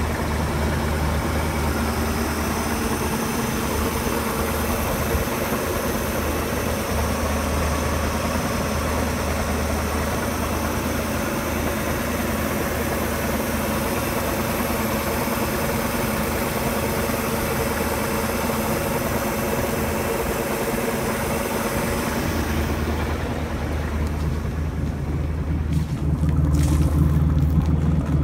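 1963 Chris-Craft Sea Skiff's V8 inboard engine idling steadily. Near the end the sound turns deeper and louder, the exhaust note at the hull's exhaust outlet taking over from the engine-bay noise.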